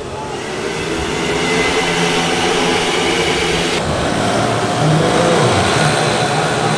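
Several racing motorcycle engines running hard together, their pitches shifting as they rev, growing louder over the first couple of seconds.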